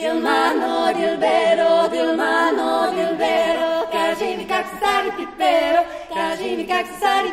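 Three women's voices singing a traditional Bulgarian folk song a cappella in close harmony. One voice holds a steady note while the other voices move around it, with short breaks between phrases.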